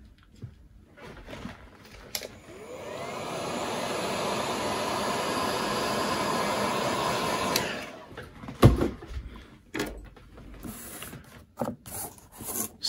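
Heat gun blowing to shrink heat-shrink tubing over a soldered wire. Its fan starts about two seconds in and spins up with a rising whine. It runs steadily for about five seconds and then cuts off, followed by a few sharp knocks and clicks of the part being handled.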